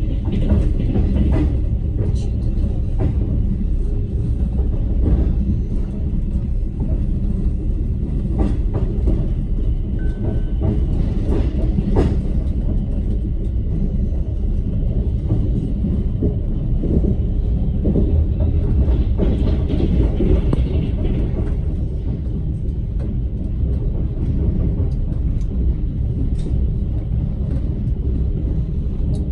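A moving train: a steady low rumble with the repeated clatter of wheels knocking over the rail joints.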